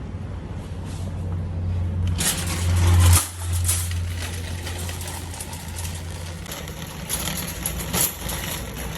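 Low steady hum of a car's running engine, with a loud rush of noise about three seconds in, then scattered clicks and rustling as the hum fades.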